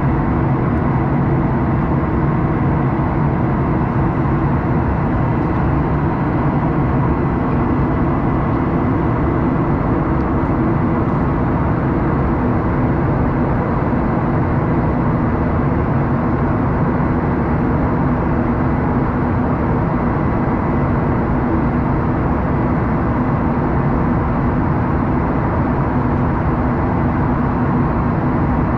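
Steady cabin noise of a jet airliner in flight, heard from inside the cabin: an even rush of engine and airflow noise with a thin, steady high tone.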